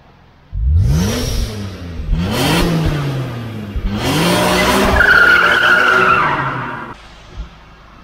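BMW E46 M3's naturally aspirated 3.2-litre S54 straight-six revved three times through its quad-pipe exhaust. Two quick rises and falls in pitch come first, then a longer rev that is held before it falls away and stops near the end.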